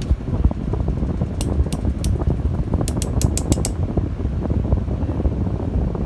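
Steady fan-like rumbling noise, with a quick run of about nine small sharp clicks from about one and a half to three and a half seconds in, from a selfie stick tripod being unpacked and handled.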